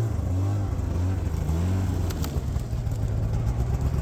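Snowmachine engine running at idle just after being pull-started, with a couple of small rises in pitch.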